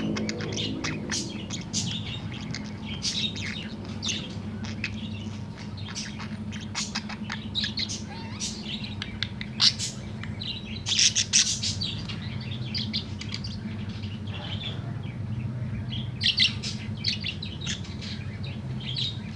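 Budgerigar warbling: a rapid, irregular chatter of short chirps, clicks and squeaks, with louder bursts about ten seconds in and again near the end, over a steady low hum.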